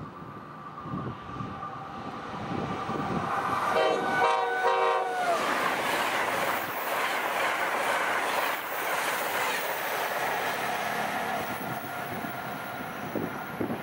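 Amtrak AEM-7 electric locomotive sounds its Nathan K5LA horn about four seconds in, a short multi-chime blast whose pitch drops as the locomotive passes. Then the Amfleet train rushes by at speed, wheels clattering on the rails, fading near the end.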